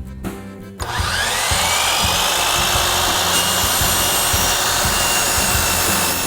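Electric miter saw spinning up about a second in, its motor whine rising and then holding steady as it cuts the PVC brick mould headpiece to length. It winds down near the end.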